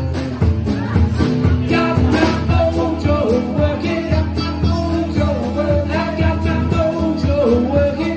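Live band music: a man singing into a microphone over a strummed acoustic guitar, with a drum kit keeping a steady beat.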